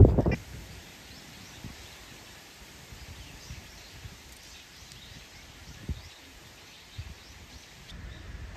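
A cat's meow is cut off right at the start, leaving quiet outdoor ambience with faint, rapid bird chirps and a few soft knocks.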